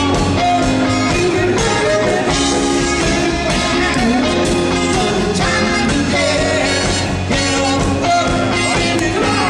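Live rock band playing with a man singing lead.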